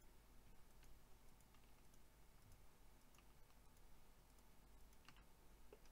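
Faint computer mouse clicks, several spread irregularly over a few seconds, against near silence.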